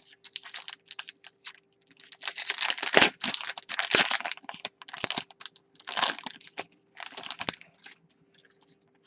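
2016-17 Fleer Showcase hockey cards being handled and slid over one another: quick clicks and papery rustling, heaviest around three and four seconds in, again around six seconds and near seven and a half.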